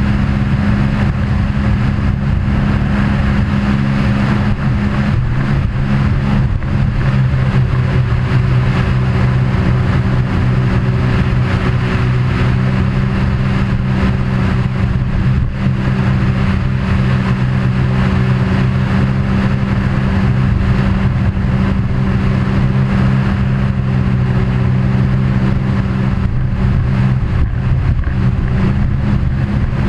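Vehicle travelling at a steady speed: an even engine drone holding one pitch, over a wide rushing noise.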